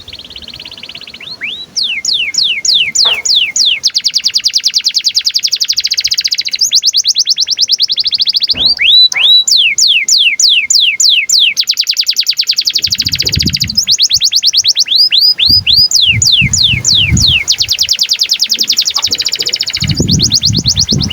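Domestic canary singing a long, unbroken song in breeding condition: trill after trill of fast, evenly repeated downward-sweeping notes, the phrase changing every few seconds. It starts softly and is at full voice from about two seconds in.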